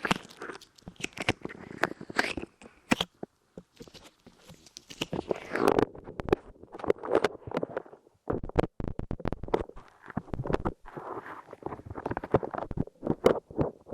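Light clay being squeezed, pressed and pulled off right against the microphone: sticky crackling and dense irregular clicks with muffled swells. There are brief lulls about four and eight seconds in.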